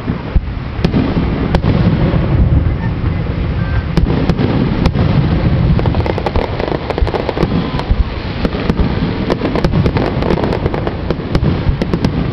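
Aerial fireworks bursting in quick succession: a heavy low rumble of booms with many sharp bangs and crackles on top.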